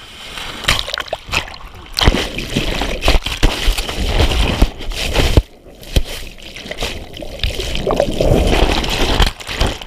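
Ocean surf breaking over a GoPro in its waterproof housing: churning, sloshing water and splashes against the camera, with many sharp knocks. It grows loud about two seconds in and dips briefly about halfway through.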